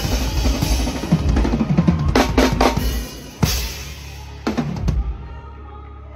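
Live drum kit playing with the band, ending in a run of loud hits between about two and five seconds in; then the music stops, leaving a low steady hum.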